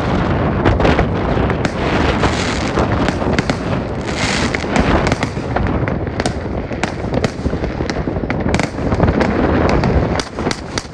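Fireworks and firecrackers going off in a dense, unbroken run of sharp bangs and crackles over a constant rumble.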